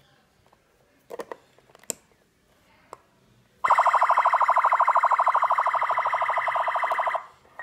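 A toy remote-control police car's built-in siren sounding through its small speaker: a loud electronic tone pulsing very fast. It starts about three and a half seconds in, runs for about three and a half seconds and cuts off suddenly.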